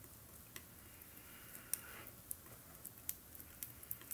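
Paintbrush mixing thick paint on a palette: faint soft scrubbing with a scatter of small, irregular ticks as the brush works the paint.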